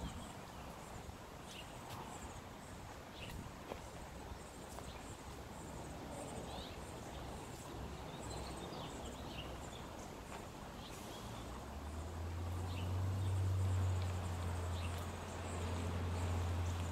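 Small birds chirping now and then over a steady outdoor background, with a low steady hum setting in during the last five seconds and becoming the loudest sound.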